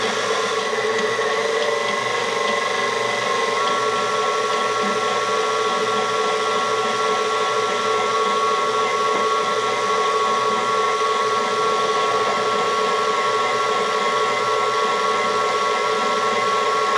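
Electric mixer motor running steadily with a whine while mixing bread dough as flour is worked in; its pitch steps up slightly about three and a half seconds in.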